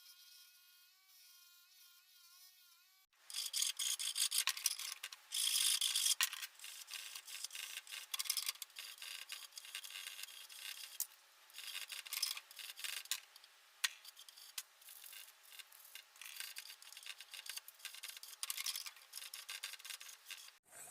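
A faint whine that wavers in pitch, then after about three seconds an abrupt cut to a long run of irregular rasping, scrubbing strokes of abrasive hand work on a part, such as sanding, filing or brushing.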